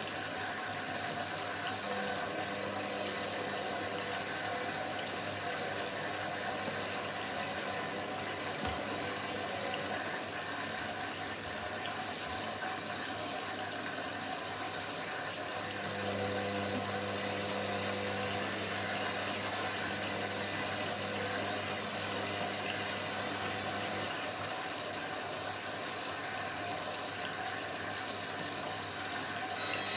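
Washing machine running, with a steady rush of water through it and a low motor hum that comes in about halfway and holds for several seconds before easing off.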